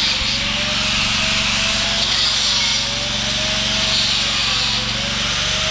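Jackhammer running steadily as it breaks up concrete: a continuous rapid hammering, with a motor tone that wavers slightly in pitch under load.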